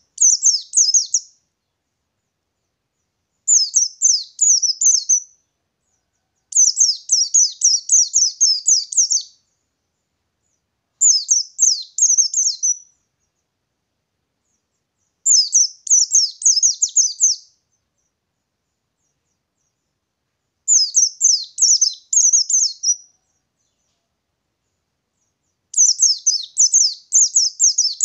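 White-eye (pleci ngalas) singing a rapid, rolling, high-pitched twittering song, in seven phrases of about two seconds each with short pauses between them.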